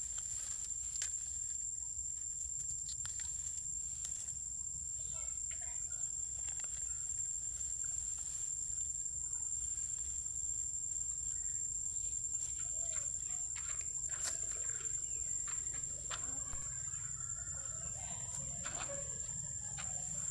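Soft, short clucking animal calls, growing more frequent in the second half, over a steady high-pitched whine.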